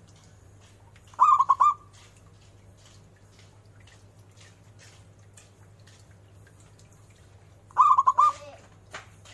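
Zebra dove (perkutut) singing: two short cooing phrases, each a quick run of four or five staccato notes, about a second in and again near the end. A faint steady low hum sits underneath.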